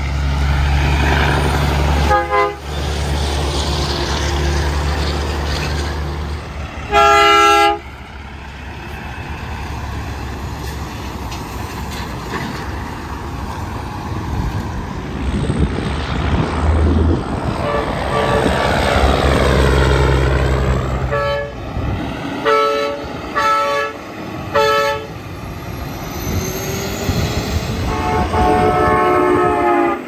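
Semi trucks blasting aftermarket train horns as they pass: a short horn chord about two seconds in, a loud blast of under a second near seven seconds, a truck going by, four quick toots, and a longer blast dropping in pitch as a truck passes near the end. A diesel engine runs underneath at the start.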